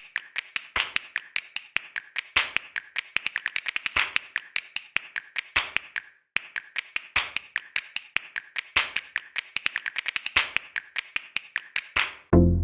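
A fast, rhythmic run of sharp taps and clicks, with a louder hit about every second and a half in a repeating pattern, broken by a short pause about six seconds in. Bass-heavy electronic music starts right at the end.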